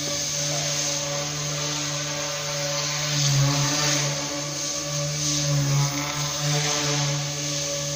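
Small electric RC model aircraft flying, its motor and propeller making a steady buzzing hum that wavers in pitch and swells louder about three seconds in and again around five to seven seconds as it passes closer.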